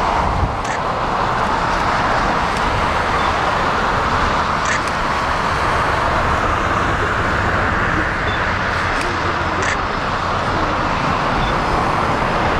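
Jet engine noise from a Boeing 777-300ER's GE90 turbofans at low taxi power: a steady, even roar with no change in pitch.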